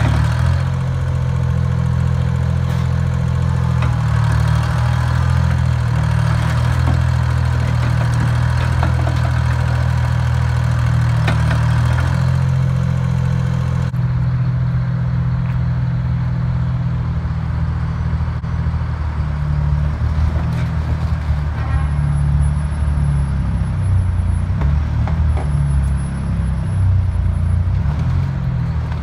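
Link-Belt LS-78 crawler crane's diesel engine running with a steady low drone. About halfway through the sound changes abruptly, and the engine note then becomes more uneven and labouring as the crane works, puffing exhaust smoke.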